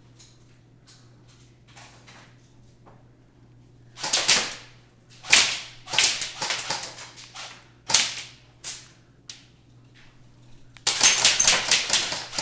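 Airsoft gunfire exchange: near-quiet with faint clicks at first, then several sharp cracks of shots and BB hits from about four seconds in, and a rapid string of shots near the end.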